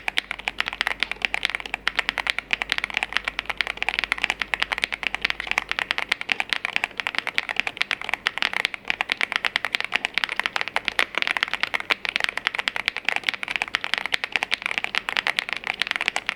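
Fast, continuous typing on a YUNZII AL68 gasket-mounted aluminum mechanical keyboard, many keystroke clicks a second.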